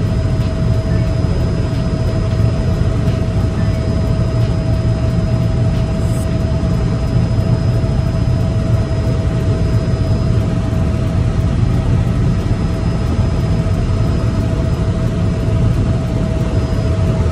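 Helicopter in flight heard from inside the cabin: a loud, steady drone of rotor and engine with a thin, steady whine above it.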